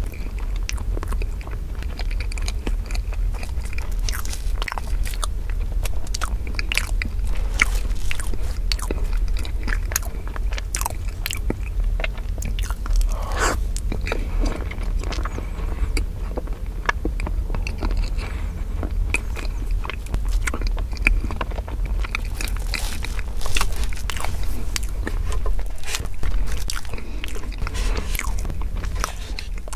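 Close-miked chewing and mouth sounds of someone eating strawberry crepe cake with whipped cream, with many short clicks.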